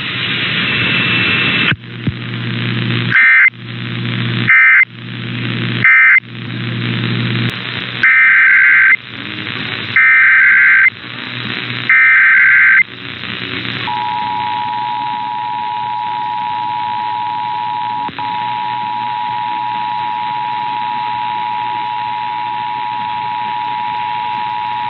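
Emergency Alert System signalling received off the air over a background of radio hiss: three short warbling SAME data bursts marking the end of the previous message. Then come three longer SAME header bursts of about a second each, announcing the next test. About 14 seconds in, the steady two-tone EAS attention signal (853 and 960 Hz) begins and holds.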